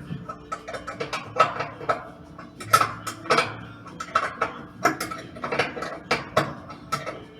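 Metal tools and washing-machine parts clinking and clicking irregularly, with ratchet-like clicks, over a faint steady hum.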